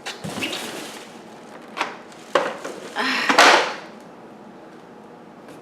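Packaging and vacuum parts being handled while unpacking: rustling, a couple of sharp knocks, and a loud rustle about three seconds in.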